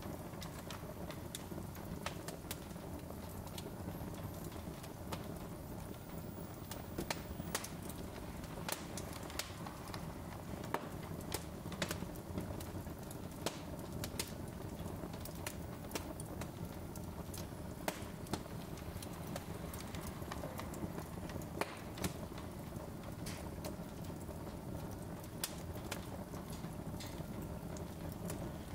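Wood fire burning in a fireplace, crackling with irregular sharp pops and snaps over a steady low rumble.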